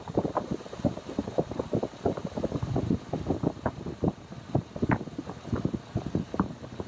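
2003 Ford F-250 Super Duty's 6.8-litre V10 idling, with a run of uneven pulses. The engine has an intermittent cylinder 1 misfire (code P0301) that cuts in and out, which the mechanic suspects comes from an arcing ignition coil rather than the injector.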